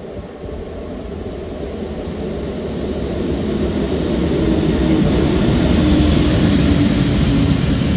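Locomotive-hauled EuroCity passenger train pulling into the station, its running noise growing steadily louder as it comes closer, with a steady low tone in it from about halfway through.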